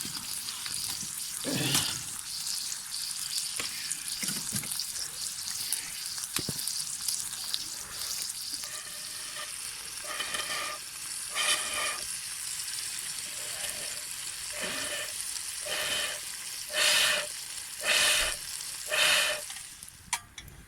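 Food frying in a pan with a steady sizzle. In the second half come a run of short pitched sounds, each under a second, and the last three, about a second apart, are the loudest.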